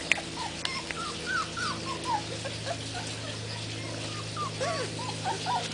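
A litter of young puppies whimpering and yipping in many short, high calls that overlap, over a steady low hum.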